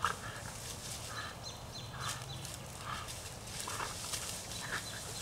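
English bulldog chewing and tugging at tree limbs, with a noisy sound from the dog about once a second and scattered small clicks and snaps.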